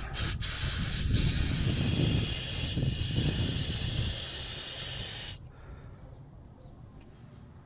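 A loud, steady hiss of spray or escaping air, starting about half a second in and cutting off suddenly after about five seconds.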